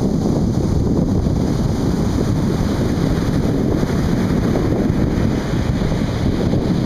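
Atlantic Ocean surf washing on a beach, a steady rushing roar, with wind rumbling on the microphone.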